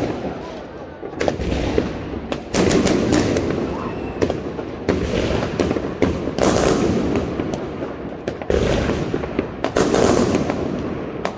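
Aerial fireworks bursting overhead: a dense run of sharp bangs over continuous crackling, swelling into several louder volleys.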